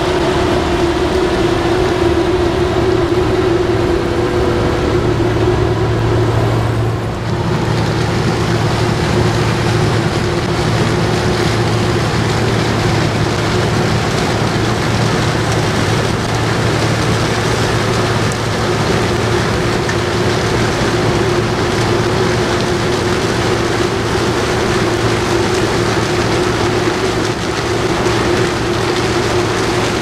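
Claas Mega 360 combine harvester running steadily as it harvests sunflowers through its Oros sunflower header: a constant machine drone with a steady tone over broad mechanical noise, dipping briefly about seven seconds in.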